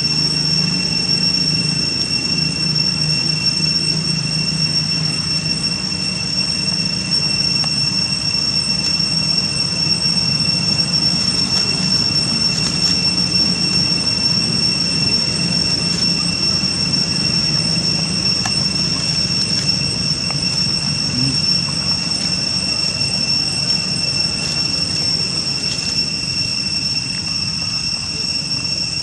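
A steady high-pitched insect drone that holds one pitch throughout, over a low background rumble.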